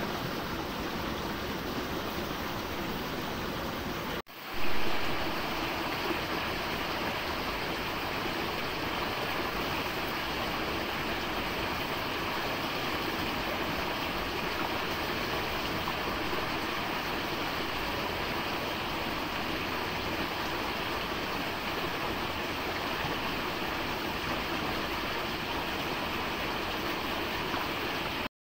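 Stream water rushing steadily. About four seconds in the sound drops out for a moment, then comes back briefly louder.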